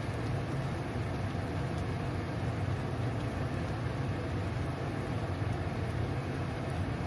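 A wok of prawns cooking in a sauce over a stove: a steady low rumble with a lighter hiss above it, unchanging throughout.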